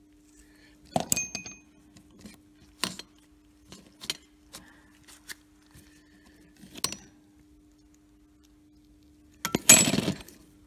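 Steel gearbox parts such as bearings clinking and knocking as they are handled, in a string of separate clinks, with a short burst of rattling near the end.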